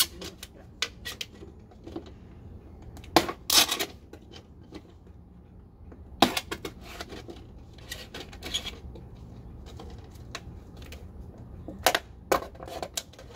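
Thin plastic soda bottle crackling and clicking as a knife blade pushes through its side to cut slits. The sharp cracks come at irregular intervals, the loudest about three and six seconds in, with a cluster near the end.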